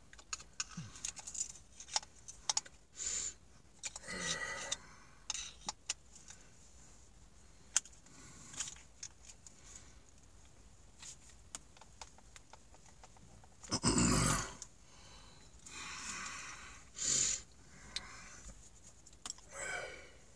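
Faint metal clicks and scrapes of a flathead screwdriver working at the thread-locked, reverse-thread screw inside a Makita drill's quick-release chuck, the screw not giving. Several short hard breaths of effort come between the attempts, the loudest about 14 seconds in.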